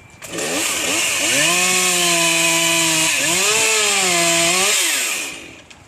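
Two-stroke chainsaw revved to full speed and held there for about five seconds, loud. Its pitch sags once about three seconds in, climbs back, then drops off sharply near the end.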